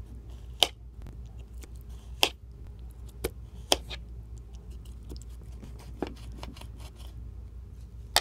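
A sliced lemon being pressed and handled by fingers: sharp, wet clicks and snaps, about five louder ones among fainter ones, over a low steady hum.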